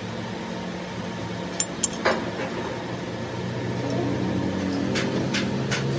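Steel differential spider gears and cross shaft being handled, clinking metal on metal a few times about two seconds in, then a quick run of light metallic ticks near the end, over a steady workshop hum.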